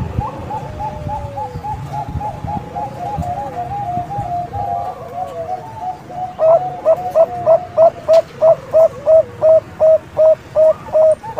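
Zebra doves of the Bangkok song strain (perkutut bangkok) cooing: a quick run of softer, overlapping coos, then from about six seconds in a loud, even series of short coos at about two and a half a second.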